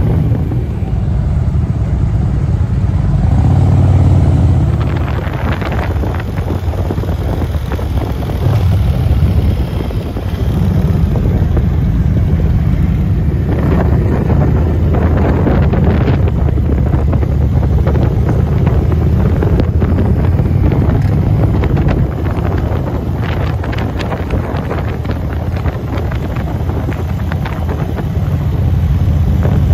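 Motorcycle engines running in a moving group ride, under a heavy low rumble of wind buffeting the microphone of a camera riding on a motorcycle.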